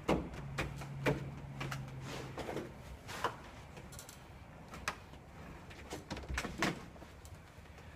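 A squeegee working the edges of freshly applied security film on window glass: irregular scrapes and sharp knocks against the pane.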